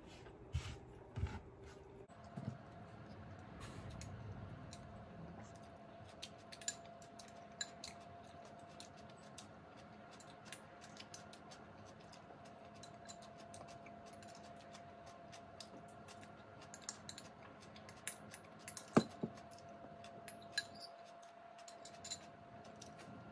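Close-miked eating sounds: chewing and small mouth clicks, with a spoon scraping and tapping in a plastic cup, many short clicks through the whole stretch. A faint steady hum sits underneath.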